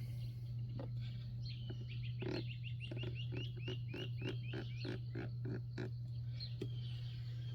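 An animal, most likely a frog or bird, calling a quick run of chirps, about four a second, for a few seconds in the middle. A steady low hum runs underneath.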